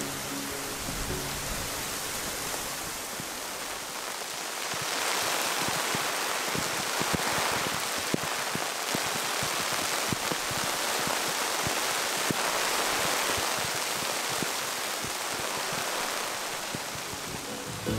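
Rain falling on a tarp stretched over a thatched roof, with individual drops tapping sharply on the fabric over a steady hiss. The rain grows heavier about five seconds in.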